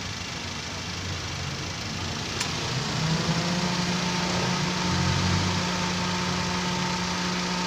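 Toyota Avanza engine idling with the air-conditioning running while refrigerant is charged. A little over two seconds in there is a click, and from about three seconds a louder, steadier hum sets in and holds.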